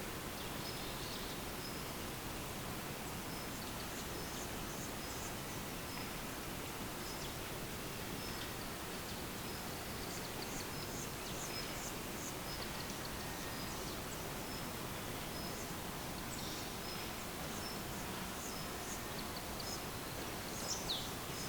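Outdoor meadow ambience: a steady hiss with an insect giving a short high chirp about once a second, and scattered bird chirps. A brief falling bird call comes near the end.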